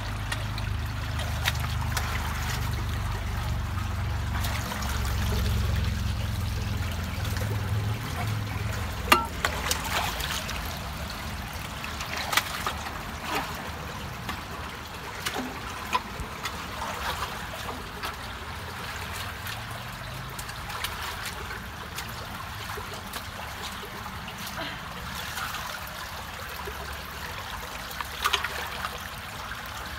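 Water trickling and splashing through a partly clogged culvert as beaver-dam mud and sticks are pulled out of the opening by hand, with scattered sharp clicks and knocks of sticks. A low rumble runs under the water for the first eight seconds or so.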